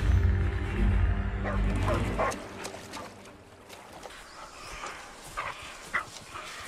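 Film soundtrack: a low droning music score that stops about two seconds in, with short high dog whimpers and yips over its end, then a quieter stretch with a couple more brief yelps.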